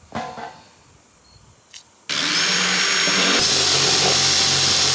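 Cordless power driver sinking a rubber-washered roofing screw through tin roofing into the wood beneath, its motor cutting in suddenly about two seconds in and then running steadily.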